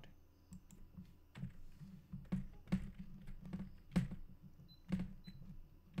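Computer keyboard keys and mouse buttons clicking at an irregular pace, about ten clicks with the sharpest about four seconds in, over a low steady hum.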